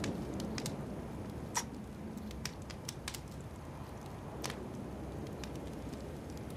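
Low, steady background rumble with scattered small clicks and ticks; the loudest click, about a second and a half in, carries a brief squeak.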